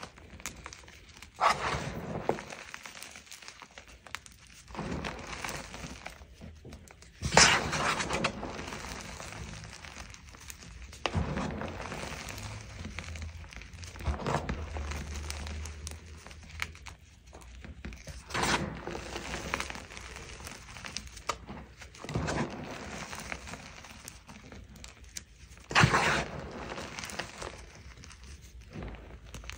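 Hands crushing and crumbling soft, crunchy dyed gym chalk in a plastic tub: continual gritty crumbling with sharper crunches as lumps break, four of them notably loud.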